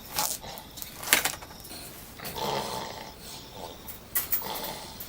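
A sleeping man snoring, with one rasping snore about two seconds in. A few sharp knocks or clicks come around it, the loudest about a second in.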